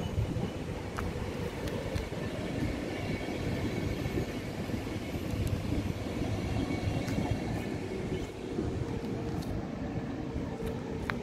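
PKP Intercity passenger coaches rolling past on the rails and pulling away: a steady rumble of wheels on track, with a few sharp clicks.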